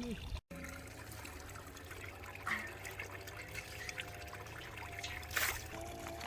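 Water trickling steadily, with a brief sharp splash-like noise about five seconds in. Soft background music with wavering held notes comes in after about two seconds and grows louder near the end.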